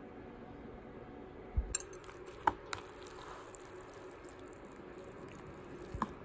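Metal spoon mixing bibimbap and gochujang in a disposable bowl: a few sharp taps and clinks of the spoon against the bowl, a cluster about two seconds in and another near the end, over faint room tone.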